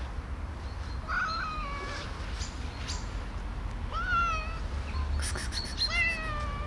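A cat meowing three times, short high calls each falling in pitch.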